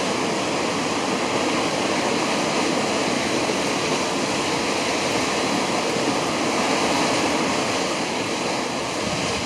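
Waterfall plunging into its gorge: a steady, unbroken rush of falling water.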